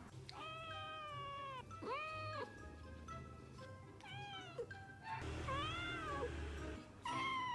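Domestic cat meowing: about five drawn-out meows, several rising then falling in pitch, with short gaps between them, over background music.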